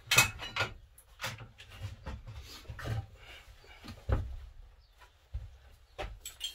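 Tools being rummaged through on steel van shelving as a rotary lawn edger is pulled out: a series of knocks, clunks and scrapes, the loudest just after the start and about four seconds in.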